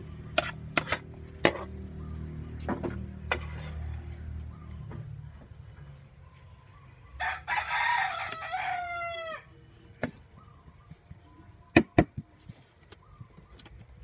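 A rooster crowing once, about seven seconds in: a long call with a falling end. Around it, a cooking utensil knocks sharply against the pan several times, in a cluster in the first few seconds and again twice near the end.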